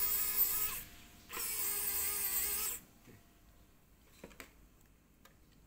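Xiaomi Wowstick electric precision screwdriver running as it drives a small screw, in two short runs: the first stops just under a second in, the second starts a moment later and stops near the three-second mark. A few faint clicks follow.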